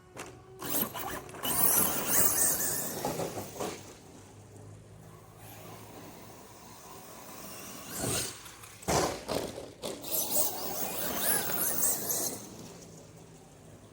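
Electric RC monster truck (Arrma Kraton) driven hard in two long runs, about a second in and again around eight seconds in, its motor and tyres making a noisy whir and scrape. The owner says its clutch is slipping.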